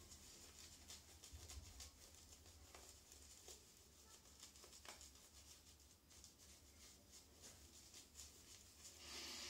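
Faint soft scratchy swishing of a synthetic-fibre shaving brush working shave cream into a lather on the cheek and jaw, in many small strokes.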